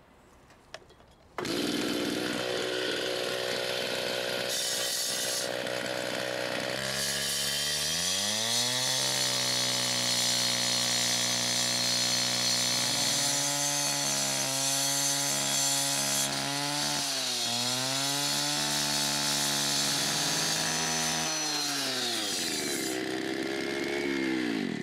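Two-stroke handheld cut-off saw starts idling about a second and a half in, is throttled up a few seconds later and cuts through a clay tile block with a gritty grinding hiss, its pitch sagging under load. Near the end the throttle is let off and the engine winds down.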